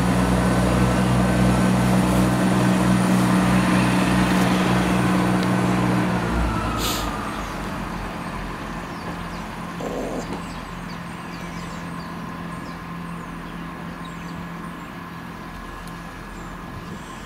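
Class 170 Turbostar diesel multiple unit pulling away under power, its underfloor diesel engines running with a steady low drone. About six seconds in the engine note drops and the sound fades as the train draws away.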